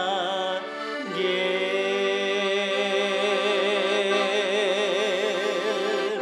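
A man singing a long held note with vibrato over the sustained chords of a Hohner piano accordion. The accordion changes chord about a second in.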